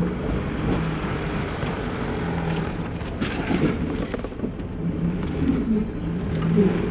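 Mazda BT-50 ute's diesel engine running at low revs as it crawls down a rocky washout, with rough crunching and scraping from tyres and underbody on rock and clay about halfway through.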